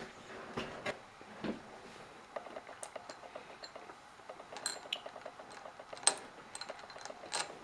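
Jelly beans clicking against a glass candy dish as a hand picks through them: scattered light clinks, the sharpest about six seconds in.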